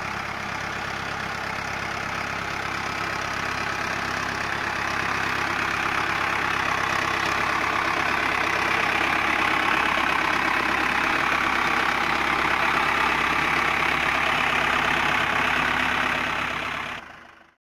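Mahindra Arjun tractor's diesel engine running steadily while pushing soil with a front dozer blade, growing louder over the first several seconds as the tractor comes close, then cutting off at the very end.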